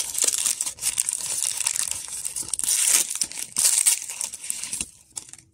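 Toy packaging crinkling and rustling in the hands as a blind-pack capsule is opened, with small sharp crackles throughout; it dies away about five seconds in.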